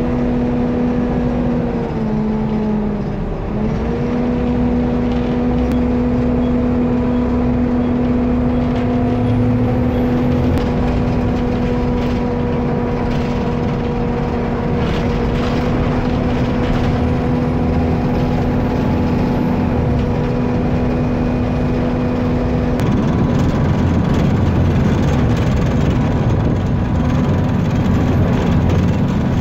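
Diesel engine of a double-decker bus running under way, heard inside from the back seats of the lower deck. A steady humming tone over the engine rumble dips in pitch briefly about two to three seconds in, then holds level until it stops about twenty-three seconds in, when the rumble grows a little louder.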